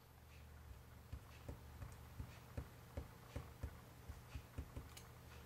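Faint, soft tapping, about three taps a second, from clear-stamp inking and stamping: an acrylic stamp block being dabbed and pressed with ink on paper.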